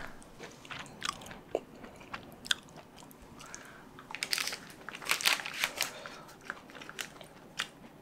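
Biting and chewing a crisp, thin tortilla-crust pizza: irregular sharp crunches, thickest about halfway through.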